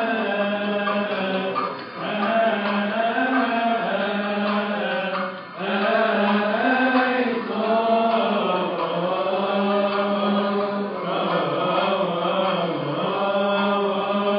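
Coptic Orthodox liturgical hymn chanted in unison by a group of men's voices, long drawn-out melismatic notes. The phrases break briefly about two and five and a half seconds in.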